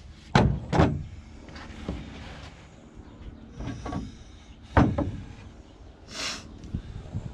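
A tool and wooden strips being set down and moved about on a sheet of OSB: a few hard wooden thuds, two close together about half a second in and another about five seconds in, then a short scrape about six seconds in.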